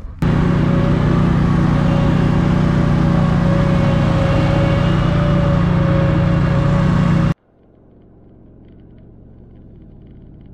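Zero-turn lawn mower engine running loud and steady at high speed while one mower tows the other. About seven seconds in it cuts off abruptly, giving way to quiet, steady road noise inside a pickup cab.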